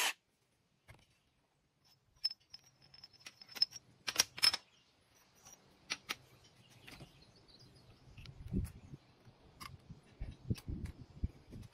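Scattered metal clinks and taps as bolts and caps are taken off a John Deere hydraulic pump housing, with a louder short clatter about four seconds in and a few low clunks of the heavy cast-iron pump parts being handled near the end.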